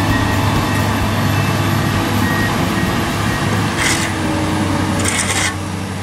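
Komatsu PC200 hydraulic excavator's diesel engine running steadily under load as it digs and swings. Two short bursts of high hiss come about four and five seconds in.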